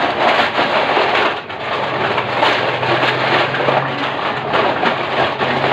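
Running water spraying and splashing onto dishes, loud and steady, with a low steady hum that joins about two seconds in.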